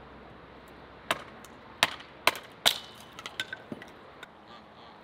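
Hatchet chopping kindling: four sharp chops a little over a second in, roughly half a second apart, then a string of lighter knocks and clicks of wood.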